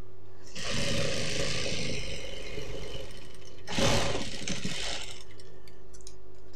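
Industrial sewing machine stitching in short runs: one of about a second and a half starting just after the beginning, then a brief burst about four seconds in, over a steady low hum.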